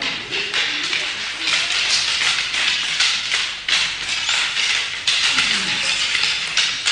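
Eskrima sticks clacking together in quick, irregular strikes during stick sparring, a few knocks each second.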